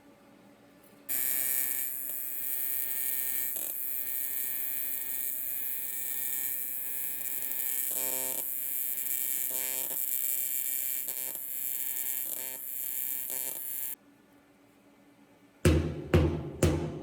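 AC TIG welding arc on aluminum buzzing steadily, with a high hiss, for about thirteen seconds, starting and cutting off abruptly as one continuous bead. Near the end, music with heavy, regular drum hits begins.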